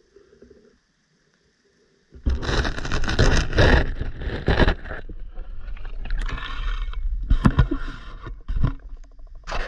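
Underwater GoPro in its waterproof housing being handled and lifted out of a pond. About two seconds in, faint muffled underwater quiet gives way to loud sloshing water and rubbing and knocking against the case.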